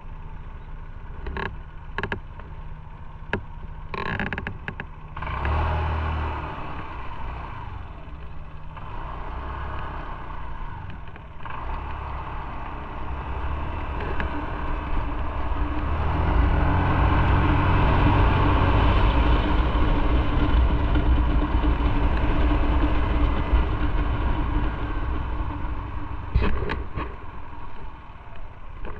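Motorcycle riding on the road. The engine and road noise grow much louder about halfway through as it speeds up, and there are a few sharp clicks in the first few seconds.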